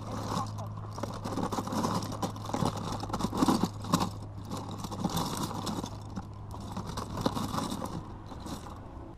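Loose plastic Lego bricks clattering and scraping against each other and the plastic tote as hands rummage through them, a busy run of irregular clicks.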